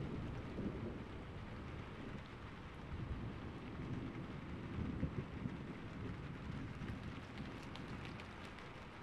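Steady rain with low rolling thunder. The thunder swells about halfway through, and a few sharp drop ticks come near the end.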